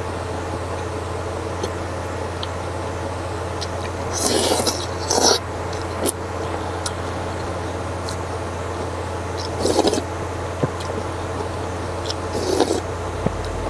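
Slurping of noodles and broth from a wooden spoon while eating a spicy noodle soup: a double slurp about four seconds in, then single slurps near ten seconds and near the end, with small utensil clicks between. A steady low hum runs underneath.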